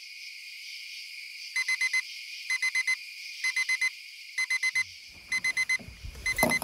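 Electronic alarm clock going off: groups of four quick high beeps repeating about once a second, six times. Low handling and movement noise comes in near the end.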